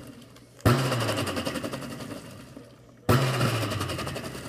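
Kitchen blender pulsed in short bursts: the motor kicks in suddenly and winds down, twice, about two and a half seconds apart.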